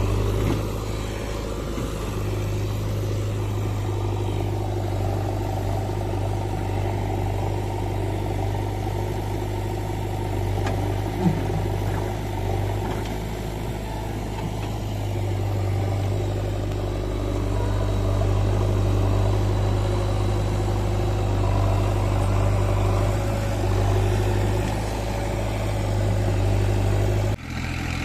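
Heavy diesel engine of earth-moving and farm machinery running steadily at a low, even speed, with an abrupt break near the end.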